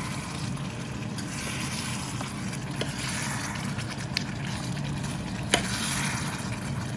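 Thick brinjal and potato curry simmering and sizzling in the pan as it reduces, a steady hiss, with a sharp tap about five and a half seconds in.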